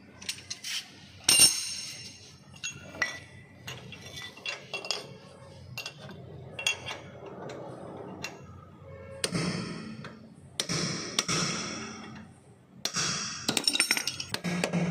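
Hand tools clinking and knocking on the axle nut at the hub of a Honda Amaze's rear brake drum, with a sharp metallic knock about a second and a half in and rougher scraping from about nine seconds.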